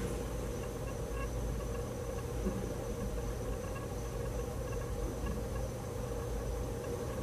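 Quiet room tone picked up through the microphone: a steady low hum with a thin high whine over it and a few faint ticks.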